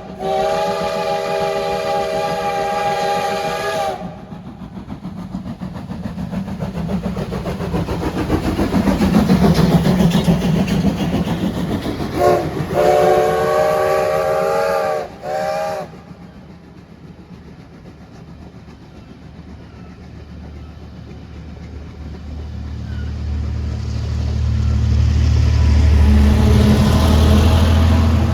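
CT273 steam locomotive's chime whistle sounding a long blast, then the train passing with a rumble that peaks about ten seconds in. The whistle sounds again as a short toot, a longer blast and a last short toot, and near the end a low engine rumble builds.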